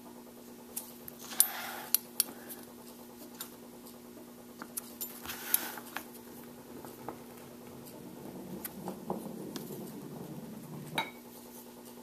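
Small handling sounds of a steel ruler and pencil on a leather strap over a cutting mat: scattered light clicks and taps as the ruler is shifted and set down, with a few brief scraping rubs as it slides and the pencil marks hole positions.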